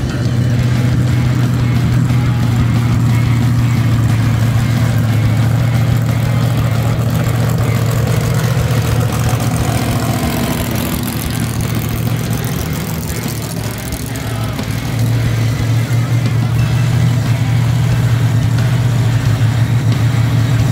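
Monster truck engines running at low speed, a deep steady rumble as the trucks roll past one after another. The rumble eases a little past the middle and grows louder again about three quarters of the way through.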